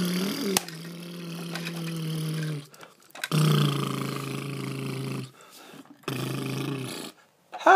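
A man's voice making three long, steady low growls, each held at one pitch, the first two about two seconds long and the last about one second.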